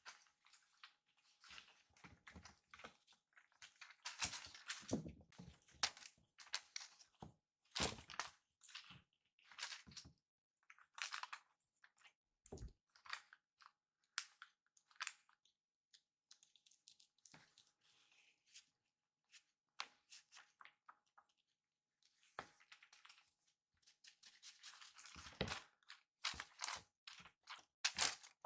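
Kittens playing on a carpeted floor: quiet, irregular scuffing, scratching and rustling as their paws scrabble on the carpet and bat at a toy, with a few light knocks. It comes in busy spells with a lull in the middle.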